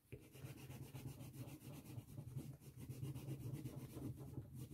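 Caran d'Ache wax pastel rubbed hard back and forth on a paper surface, a faint steady scratching of many quick strokes as red colour is laid on.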